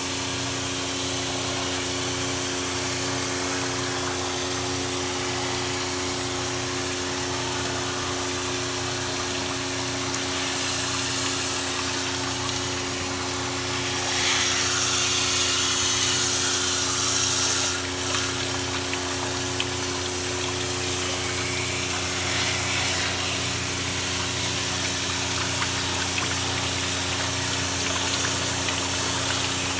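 Pressure-cleaning machine running with a steady motor-and-pump hum while its water jet sprays and hisses, washing an air conditioner coil. The spray gets louder about a third of the way in and cuts back suddenly a little past halfway.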